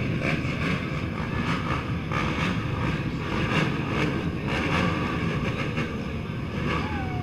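A field of race ATV engines running together at the start line, heard as a steady blended engine noise.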